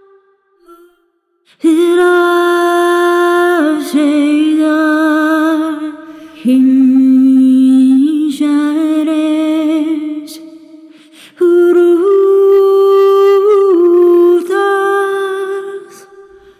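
Sampled wordless voice from the Zero-G Ethera Gold Atlantis Kontakt library, played as a virtual instrument: three phrases of held, humming-like sung notes, each moving between a few pitches and then fading out.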